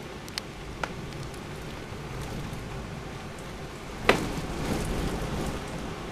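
Heavy thunderstorm rain, a steady hiss, with a couple of small sharp taps early and one much louder sharp crack about four seconds in.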